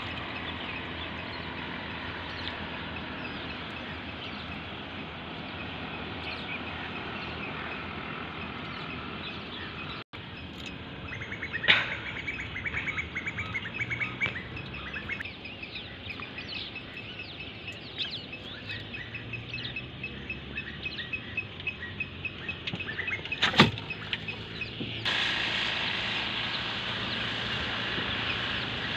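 Birds chirping over a steady background rush, with two sharp knocks, one about twelve seconds in and one about twenty-four seconds in.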